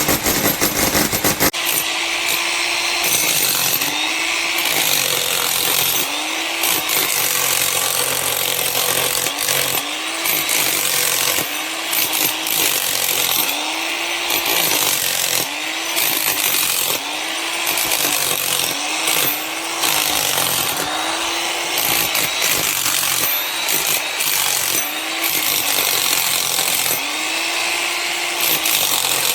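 Electric demolition hammer running in repeated short bursts, its motor note rising and falling with each burst.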